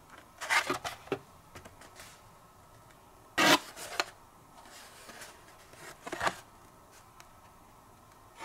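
Hot Wheels cars in plastic-and-cardboard blister packs being handled and set down: a few short rustles and clacks, the loudest about three and a half seconds in.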